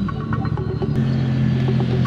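CFMOTO 450SRS motorcycle's parallel-twin engine running at low revs, its note steadying about halfway through.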